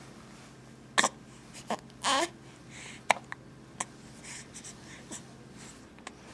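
Baby hiccuping: a sharp, short hic about a second in, then a brief squeaky cry about a second later, with a few small clicks after.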